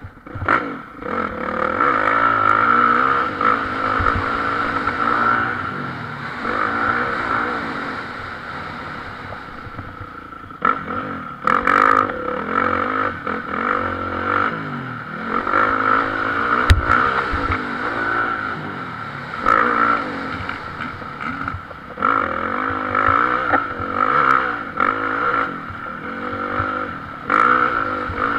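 Motocross bike engine heard from a camera riding on the bike, revving up and dropping back again and again as the rider opens and closes the throttle around the track. A few sharp knocks cut through, at about 12, 17 and 27 seconds in.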